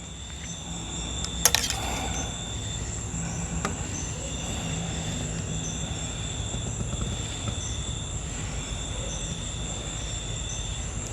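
Crickets and other insects chirping steadily outdoors over a low hum, with a sharp click about a second and a half in.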